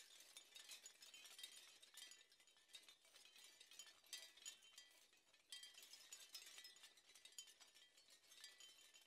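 Very faint, high tinkling, chime-like sounds: a soft background track of short ticks and brief bell-like tones.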